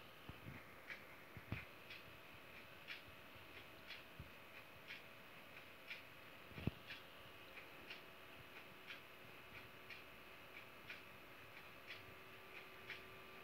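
Near silence with faint, regular ticking, about two ticks a second, over a faint steady high-pitched tone. A soft thump comes about halfway through.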